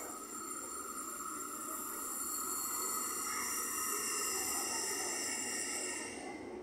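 Electric passenger train approaching the station: a steady hiss with a high-pitched whine. The highest part of the whine cuts off near the end.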